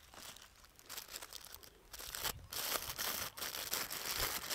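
Clear plastic bag crinkling as it is pulled off a camera lens. Faint for about the first second, then louder and busier crackling from about two seconds in.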